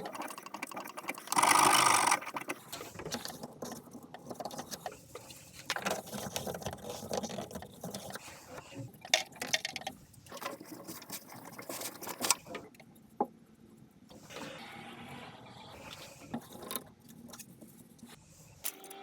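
Hand-tool and fitting noises from plumbing work on CPVC pipe. A quick run of mechanical clicks comes first, then a short loud rushing burst about a second and a half in, then scattered clicks and knocks.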